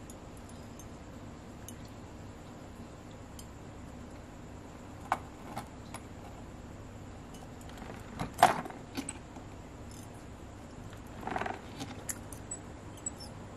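Small metallic clicks and clinks from pliers working a thin metal pin through a 3D-printed plastic suspension arm with a brass bushing. A couple of clicks come about five seconds in and the loudest cluster about eight seconds in, followed by a brief scraping rattle a little after eleven seconds and a few light ticks near the end.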